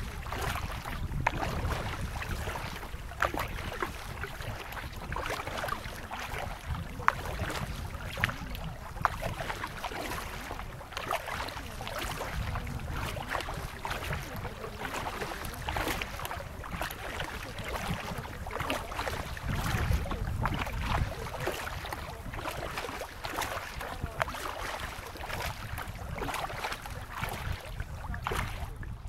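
Kayak paddling: paddle blades dipping and splashing irregularly in the water, with a low wind rumble on the microphone.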